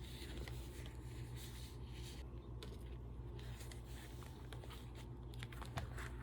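Paper pages of a handmade junk journal rustling and tapping as they are turned and handled, with one sharper tap near the end, over a low steady hum.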